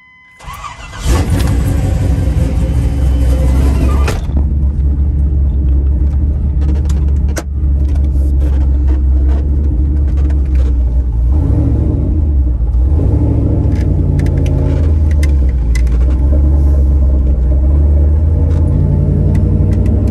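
A 1990s GM full-size truck's engine, heard from inside the cab, starts about a second in and runs with a steady low rumble. The truck then pulls away, the engine speed rising and falling around twelve seconds in.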